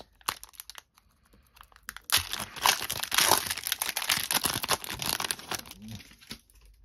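Foil hockey card pack wrapper being torn open and crinkled by hand. A few faint clicks at first, then a dense crinkling from about two seconds in that dies away near the end.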